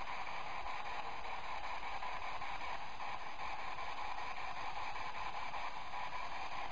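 A spirit box, a radio scanner sweeping through stations, giving out a steady hiss of radio static.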